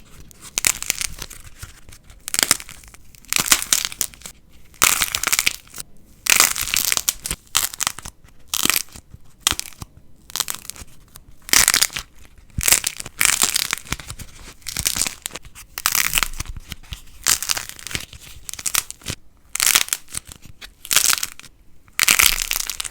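Light plasticine (foam-like slime) being squeezed and pressed by hand, giving off repeated bursts of crackling about once or twice a second.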